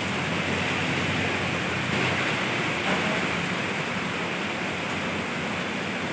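Steady heavy rain: an even, continuous hiss.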